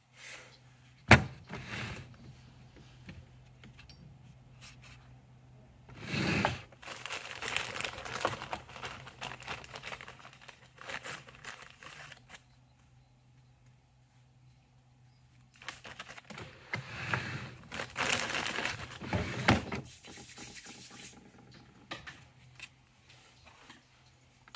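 Close hand-handling noise as a bolt is wrapped in white material: a sharp click about a second in, then two long stretches of crinkling and tearing.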